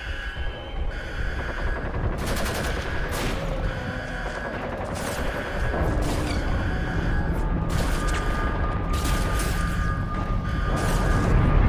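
Several bursts of rapid gunfire, a cluster of shots every few seconds, over a steady high tone and background music.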